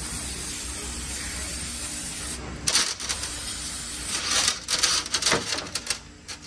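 Aerosol brake parts cleaner sprayed onto transmission pan bolts: one hissing spray burst about two and a half seconds in, then several shorter, uneven bursts from about four to six seconds in, over a steady low shop hum.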